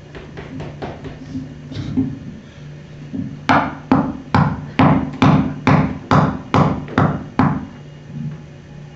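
A live stage sound effect: a series of about ten sharp, evenly spaced knocks, roughly two a second, starting about three and a half seconds in after a few lighter taps. A steady low hum runs underneath.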